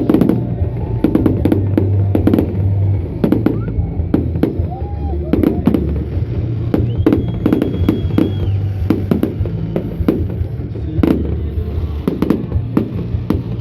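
Fireworks display: aerial shells bursting in rapid, irregular succession, many sharp bangs, over loud music with a steady bass.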